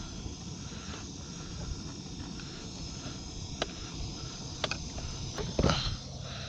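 Steady low rumble of wind and water around a small boat, with a few light clicks and a louder knock a little past halfway, from things being handled on board.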